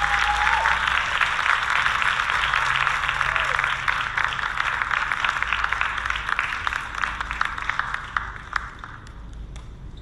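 Theatre audience applauding after a dance performance. The clapping is dense and steady, then thins out and fades in the last second or two.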